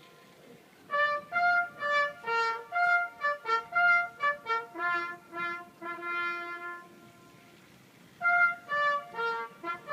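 Music: a single melodic instrument playing a quick tune in separate notes and short phrases, with a brief pause about a second in and another around seven seconds.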